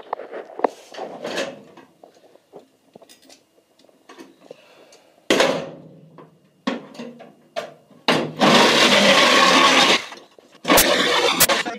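Handheld power tool run in short bursts on the bus's sheet-metal body, the longest burst near the end lasting nearly two seconds, with sharp clanks and knocks of metal between bursts.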